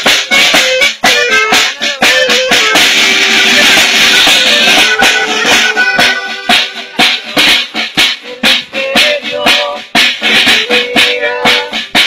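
A small band playing live: accordion and saxophone carry the melody over a strummed acoustic guitar and quick, steady snare-drum hits.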